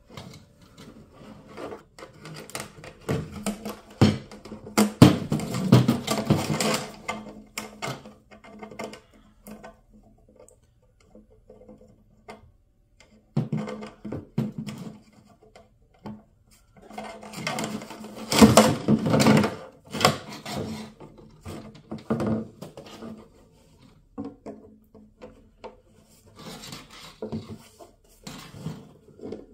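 A metal cable and fitting scraping, rattling and knocking inside a plastic fuel tank as they are worked through it by hand, in irregular bursts with short pauses between.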